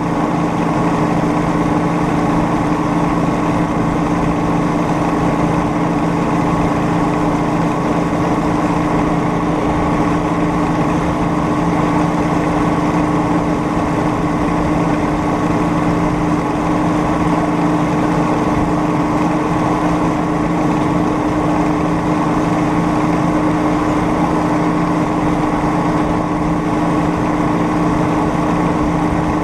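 Small engine of a homemade rail speeder running at a steady speed as the cart rolls along the track, a constant even hum with no change in pitch.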